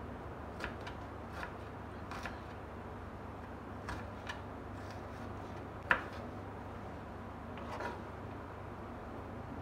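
Kitchen knife chopping onion on a wooden cutting board: a few irregular knocks of the blade on the board, one much louder about six seconds in, then a short scrape near the end as the chopped onion is pushed together.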